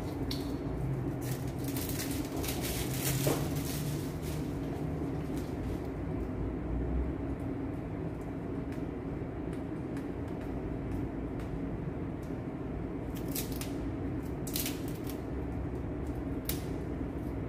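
Scattered crinkles and clicks of a foil balloon being handled at its neck, several in the first few seconds and a few more near the end, over a steady low hum.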